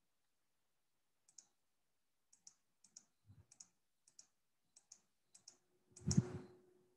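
Faint, irregular clicking at a computer, about a dozen light clicks, several in quick pairs. A louder thump comes near the end.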